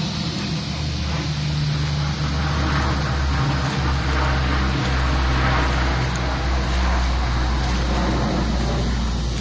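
Floodwater rushing across a street, with a steady low engine hum underneath.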